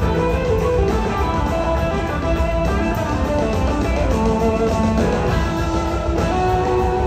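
Live blues-rock band playing an instrumental passage: guitars over two drum kits and organ.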